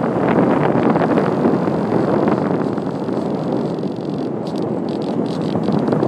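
Wind rushing over the microphone of an iPhone carried aboard a radio-controlled glider in flight: a loud, steady rush. A few light ticks come in during the last couple of seconds.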